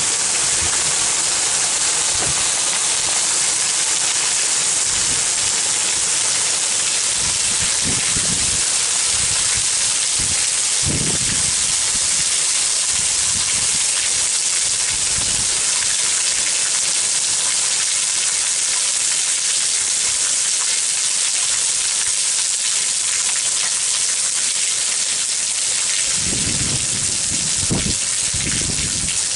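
Heavy rain falling in a steady, dense hiss. A few brief low rumbles come about eleven seconds in and again near the end.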